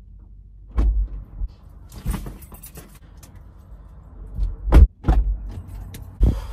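Car door opening and shutting, heard from inside the cabin, with several thumps as someone climbs into the seat. The loudest thump comes just before five seconds in.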